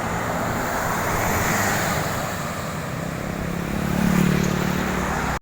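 Highway traffic passing close by, a steady rush of tyres and engines, with one engine drone swelling about four seconds in as a vehicle goes past.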